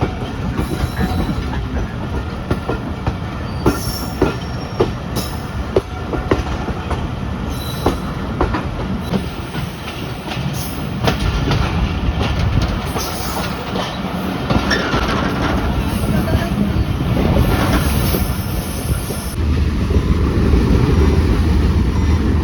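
Passenger train running on the rails: a steady rumble of the wheels, with a run of sharp clicks from the rail joints in the first half.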